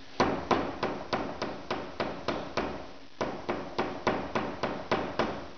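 Hammer striking a length of copper wire on a small steel anvil block to straighten it: a run of sharp metallic blows, about three a second, with a brief pause about halfway through.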